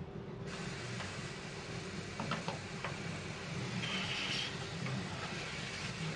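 Automotive paint spray gun hissing as its compressed air comes on about half a second in, the hiss swelling around the middle of a pass, over a steady low hum. A few faint clicks come midway.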